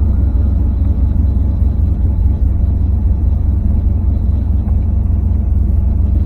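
LS-swapped 1987 Camaro's V8 running, heard from inside the cabin as a steady low rumble.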